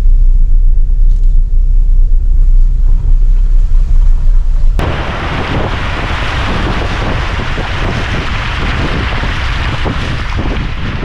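Fiat Pulse SUV driving with a low rumble and wind on the microphone; about five seconds in a steady rush of splashing water starts suddenly, as the car ploughs through floodwater covering the road, and cuts off at the end.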